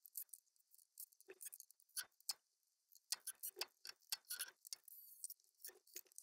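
Near silence with faint, irregular soft clicks and ticks scattered throughout.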